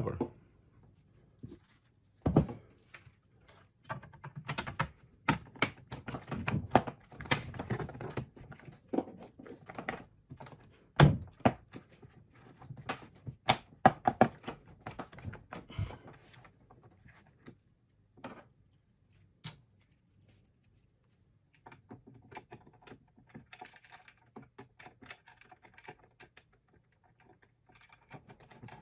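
Hard plastic battery-cartridge cover being fitted over a pack of lead-acid cells: irregular knocks, clicks and thunks as it is handled and pressed into place, two of them sharp and loud. Near the end comes a run of light, rapid ticking.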